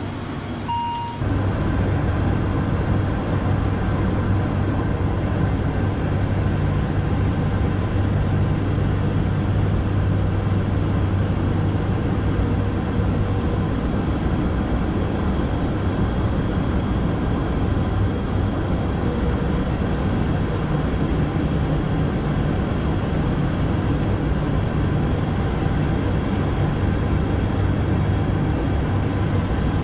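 ATR 42 turboprop engines and propellers giving a steady, loud drone with a low hum, after a short beep near the start.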